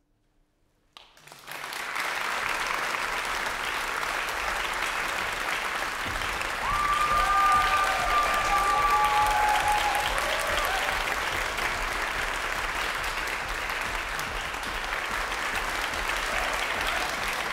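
Concert hall audience applauding, beginning about a second in out of near silence at the end of the piece and building quickly to a steady level. A few held calls from the audience rise over the clapping between about seven and ten seconds in.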